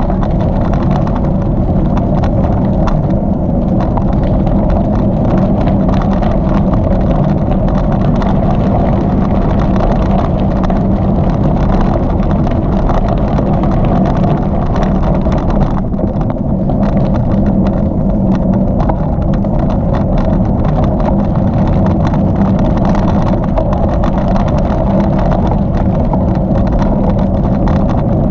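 Bicycle riding along a gravel-and-paved rail trail: a steady rush of wind over the camera microphone mixed with tyre noise, with a low hum and fine crackling ticks.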